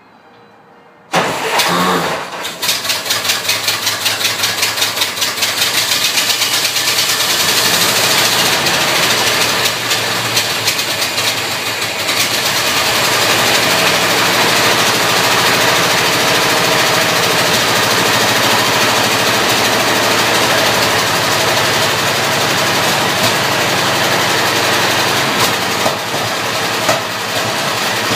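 Ford Model T four-cylinder side-valve engine on its first start-up: it catches suddenly about a second in and runs unevenly, pulsing, for several seconds, then settles into steady running.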